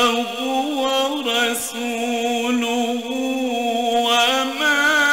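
A male Quran reciter's voice chanting in the slow, melodic mujawwad style. Long notes are held and ornamented with wavering turns of pitch.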